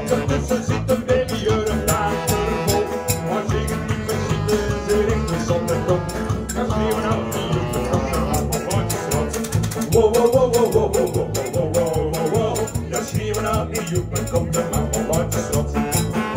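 Live acoustic band music: strummed acoustic guitars keeping a steady rhythm under a wavering saxophone melody.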